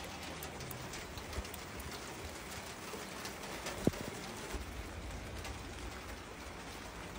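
Steady rain falling, an even hiss dotted with the patter of individual drops, with one sharper drop-like tick about four seconds in.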